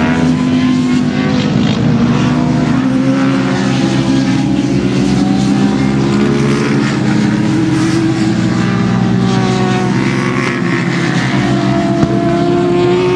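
Several racing sport motorcycles running hard through a sweeping bend, their engine notes overlapping and sliding up and down in pitch as the riders work the throttle and gears.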